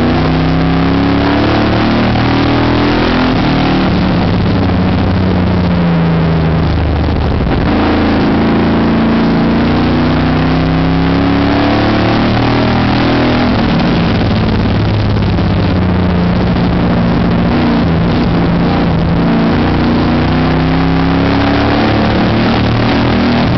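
Race car engine heard from inside the cockpit at full racing speed, its pitch repeatedly rising under acceleration on the straights and falling as the driver lifts for the turns.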